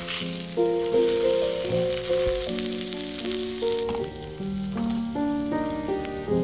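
A fish steak sizzling in a hot pan on a camp stove, the sizzle strongest at the start, under background music playing a melody.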